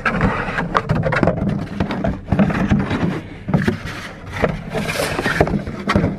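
Plastic gallon water jug being handled and pulled out of a cramped storage space: a dense run of irregular scrapes and knocks as it rubs and bumps against the surrounding gear.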